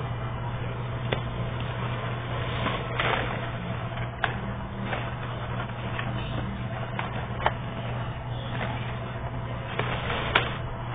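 Paper pages of a pop-up book being handled and turned, with a few sharp paper clicks and taps scattered through, the loudest near the end. Under it runs a steady low hum and hiss.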